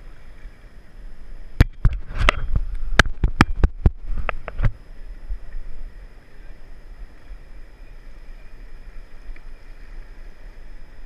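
Paddle raft on a river: a steady hiss of moving water, broken between about one and a half and five seconds in by a quick, irregular run of about a dozen sharp knocks.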